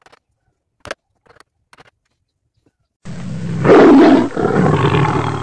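A few faint taps of a rubber mallet on a wood-carving gouge, then about three seconds in a loud recorded lion roar begins suddenly.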